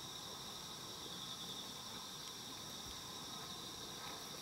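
Crickets trilling steadily, a continuous high-pitched chirring.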